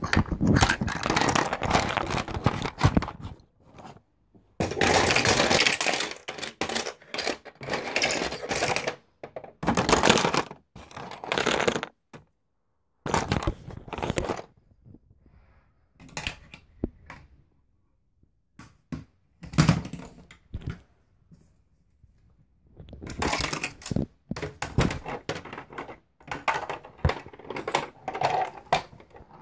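Handling noise from a phone held close to the body: fabric rubbing and scraping over the microphone in irregular rustling stretches, with a few knocks and thunks.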